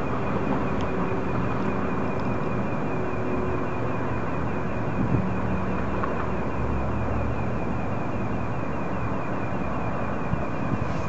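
Unidentified steady pulsating noise: a fast, even pulsing in a high tone over a continuous rumbling drone, from a source that has not been found.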